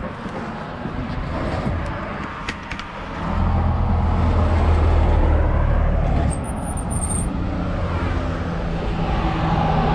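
Road traffic passing: a heavy vehicle's low engine rumble swells about three seconds in and stays loud, easing after about seven seconds.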